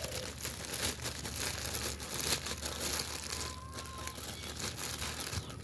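Packaging wrap crinkling and rustling in quick, irregular crackles as it is handled and pulled away in unboxing.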